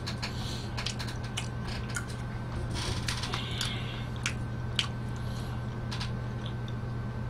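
A plastic fork working spaghetti in an aluminium foil tray: scattered small clicks and scrapes as the noodles are twirled and lifted, over a steady low hum.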